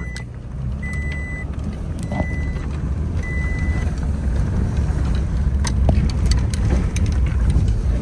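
Vehicle driving on a dirt road, heard from inside the cab: steady engine and tyre rumble that grows louder as it picks up speed, with a few clicks and rattles about two-thirds of the way in. For the first four seconds a short electronic beep repeats about four times, each about half a second long.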